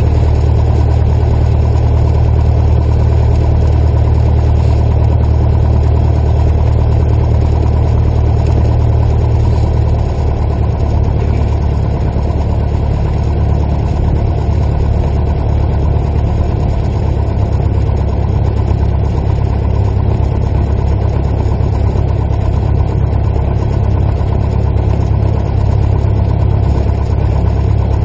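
Single-engine light airplane's piston engine and propeller running at low taxi power, heard from the cockpit as a steady drone. The note drops slightly about ten seconds in as power comes back.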